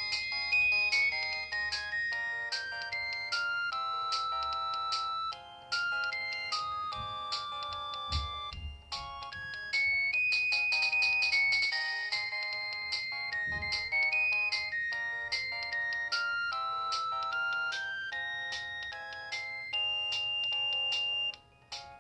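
LG TM125 mobile phone playing one of its built-in polyphonic ringtones: a synthesized melody of short notes over chords, which stops shortly before the end.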